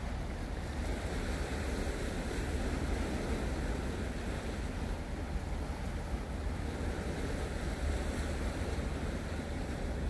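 Sea waves washing against a rocky shore, with wind buffeting the microphone as a steady low rumble.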